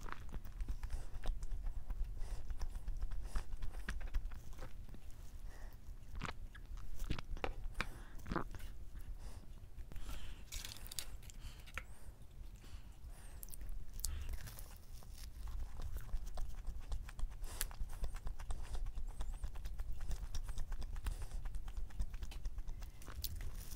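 Close-miked eating sounds: chewing a soft glazed donut, with many small wet clicks and smacks from the mouth. Around the middle comes a short stretch of soft rustling as the donut is pulled apart.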